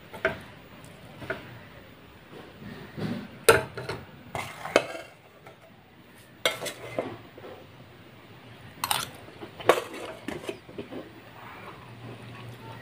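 A metal spoon scraping and clinking against an aluminium pressure cooker and a steel plate as cooked rice is stirred and served, in a string of separate knocks and scrapes.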